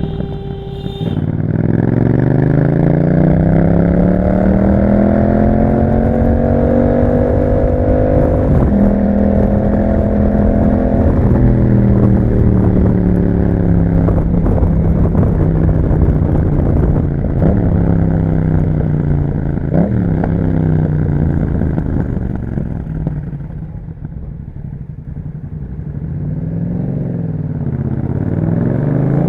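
Yamaha MT-07 parallel-twin engine through an Akrapovič exhaust, accelerating with a steadily rising pitch, then dropping in pitch at a gear change about eight seconds in. It holds a steady speed, slows to a low rumble, and climbs in pitch again near the end.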